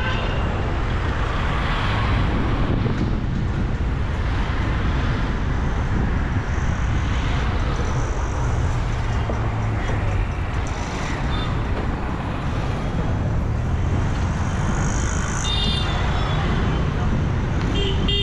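Street traffic heard from a slowly moving vehicle: a steady low rumble of engine and road noise with passers-by's voices mixed in. A vehicle horn toots briefly a few seconds before the end, and again at the very end.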